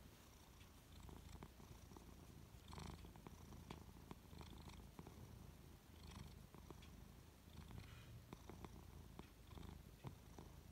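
Domestic cat purring quietly and steadily as it is stroked on the head and drifts off to sleep; the low purr swells and eases with each breath, with faint light clicks over it.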